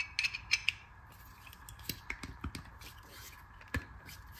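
Light metallic clicks and scrapes of a connecting rod and its rod cap, with bearing shells fitted, being handled and put together: a cluster of clicks in the first second, small ticks after, and one sharper click near the end.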